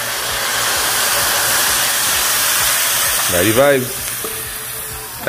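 Water poured from a plastic jug into a hot pot of curried chataigne: a steady rush of pouring water hitting the hot pan, easing off near the end.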